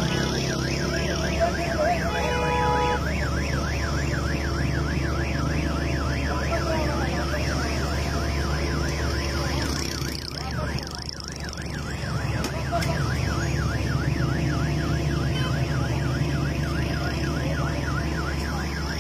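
An electronic siren yelping, its pitch sweeping up and down about three or four times a second, over a steady low hum. It fades briefly around the middle.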